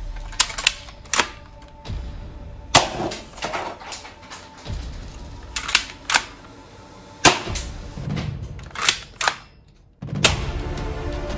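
Toy guns firing or being worked: about a dozen sharp single snaps at uneven intervals, some in quick pairs, over background music.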